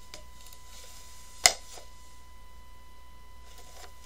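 Cardboard-boxed Funko Pop figures being handled: faint rustling and one sharp knock about one and a half seconds in.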